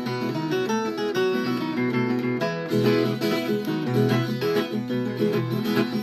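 Viola caipira, the Brazilian ten-string folk guitar with paired steel strings, played solo without singing: quick plucked runs, turning to a fuller strummed passage about three seconds in.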